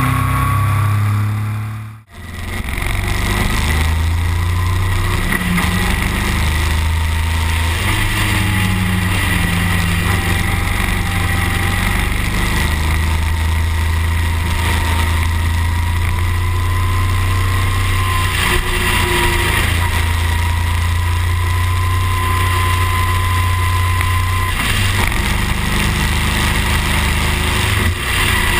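Motorcycle engine running under way, heard from an onboard camera with wind and road noise over it. The low engine note steps up and down as the bike changes speed. The sound dips out briefly about two seconds in.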